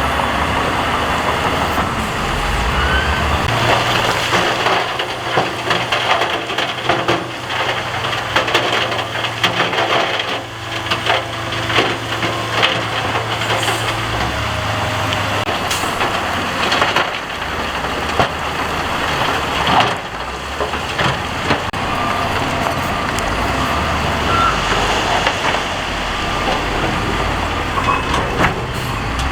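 Diesel earthmoving machinery working rock fill: an engine running under load, with rock and gravel crunching and clanking as it is pushed, the knocks thickest in the middle.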